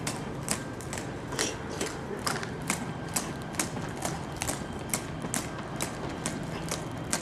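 Marching footsteps of uniformed firefighters in dress shoes on concrete: a sharp, steady click about twice a second.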